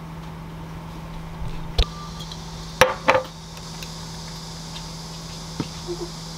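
Dishware handled on a kitchen counter: a dull knock about two seconds in, then two sharp clinks a third of a second apart about three seconds in, over a steady low hum.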